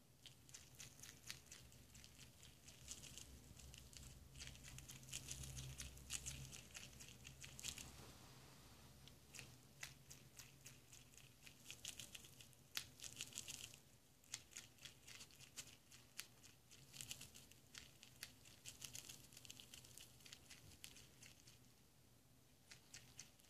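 Prairie dog nibbling seeds off a millet spray: faint, quick crunching clicks that come in clusters.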